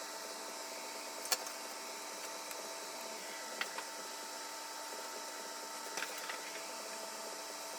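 Three short, sharp clicks, about a second, three and a half and six seconds in, over a steady hum and hiss.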